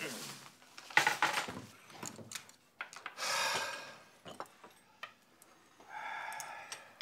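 Bowls and utensils clinking and knocking on a dinner table, the sharpest knock about a second in.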